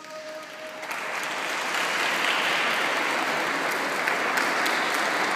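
The last sung note of the acoustic demonstration dies away in the baptistry's long echo, then a large crowd breaks into applause about a second in, the clapping swelling and holding.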